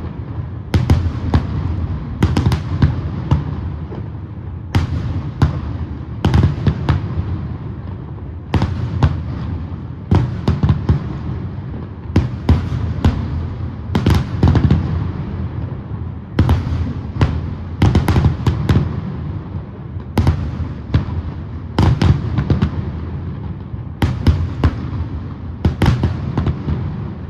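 Aerial fireworks shells bursting in a continuous barrage: sharp bangs, often in quick pairs or clusters, about every second or two, each followed by a rumbling echo that dies away.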